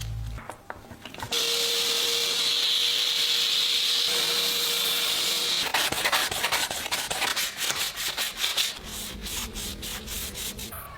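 Abrasive sanding on the knife: a steady sanding hiss with a faint hum for about four seconds, then quick back-and-forth rubbing strokes, about four a second.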